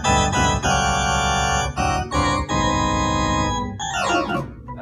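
Organ-voiced chords played loudly on a Roland XP-80 synthesizer keyboard, the chords changing every half second or so. Near the end the player sweeps a fast downward glissando and the sound stops.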